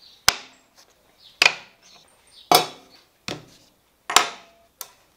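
Planed pine pieces and hand tools, including a hammer, being set down one at a time on a worktable: about six sharp wooden knocks and clacks roughly a second apart.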